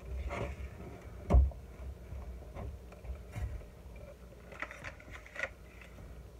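A spatula knocking and scraping in a mixing bowl of butter-soaked cornflake crumbs, with a few dull thumps, the loudest about a second in. Near the end come short scrapes as the crumbs are scraped out of the tipped bowl into a glass baking pan.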